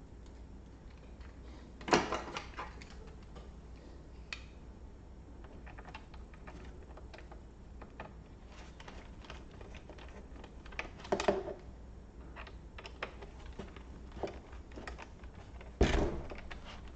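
Clicks, taps and knocks of plastic laptop parts and tools being handled during reassembly, with three louder clatters about 2, 11 and 16 seconds in and lighter ticks between.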